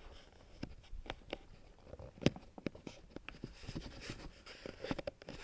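Irregular light scratching and short clicks from something being handled close to the microphone, the sharpest click about two seconds in.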